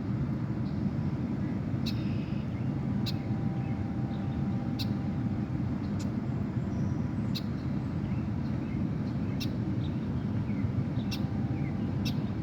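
Steady low outdoor rumble with a bird giving short, sharp, high chip calls every one to two seconds.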